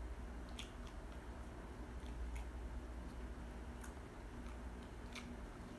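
Close-miked chewing of fried chicken and french fries: irregular sharp crunches and mouth clicks, about ten of them, over a low steady hum.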